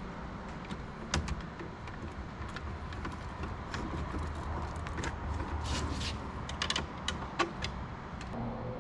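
Scattered small clicks and metallic ticks of a screwdriver working the terminal screws and wires inside a steel electrical control box, over a low steady background hum.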